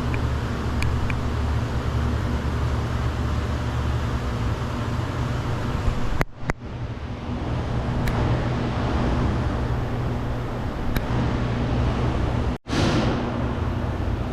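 Steady low mechanical hum over background noise, with a few faint light clicks; the sound drops out abruptly twice, briefly.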